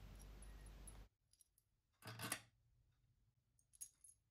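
Mostly near silence, with a brief metallic clink about two seconds in and a faint click near the end. The sounds come from small cap-head screws being fitted and tightened into an aluminium motorcycle crankcase with an Allen key.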